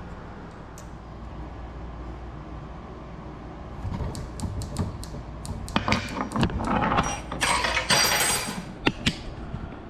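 Metal clicks and rattling from hand work on the mini bike's parts, beginning about four seconds in and growing busier toward the end, over a low steady hum.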